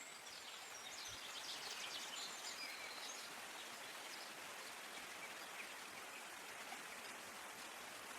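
Steady wash of water noise, with birds chirping high over it for the first three seconds.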